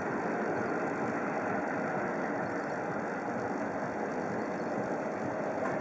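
Eurocopter EC 155 B helicopter flying past, its twin turbine engines and rotors making a steady, unchanging drone.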